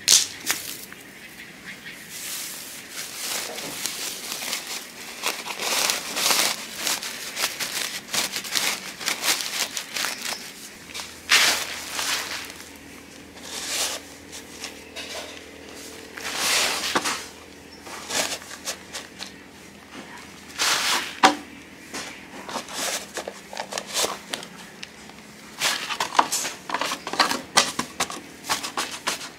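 Woven plastic sack rustling and crinkling as it is handled, with soil put into it and scooped with a cut-down plastic jug: a string of short rustles and scrapes.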